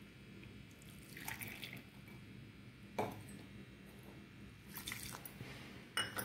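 Faint drips of milk into a steel pot, with a few light clicks.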